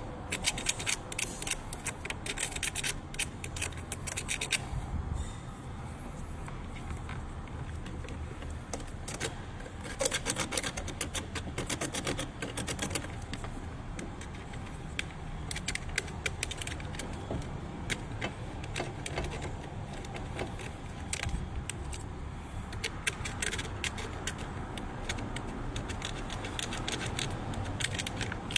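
Small metal clicks and scrapes in quick clusters, from hand tools working at the fuse box's terminals, over a steady low hum.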